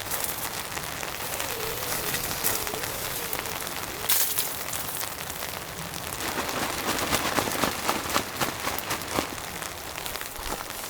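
Rain falling steadily, with many separate drops ticking, thickest between about six and nine seconds in.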